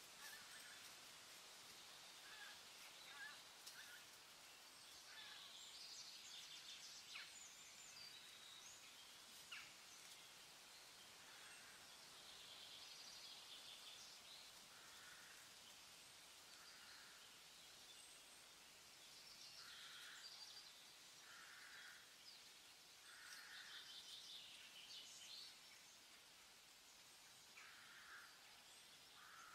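Near silence: a faint steady hiss with soft, short chirps every second or two.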